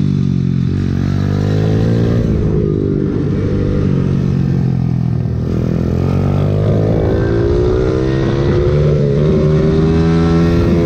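Pit bike engine heard on board at full riding speed, its pitch dropping and climbing again several times as the rider rolls off and gets back on the throttle through the track's corners.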